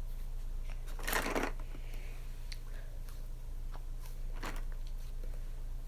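A fidget toy being handled: two short rustling crinkles, about a second in and again near the end, with a few faint clicks, over a low steady hum.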